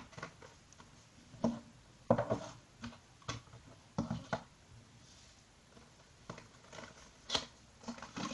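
Hands handling a small white cardboard accessory box and opening its flap, with a handful of short scattered taps and knocks of cardboard against the table.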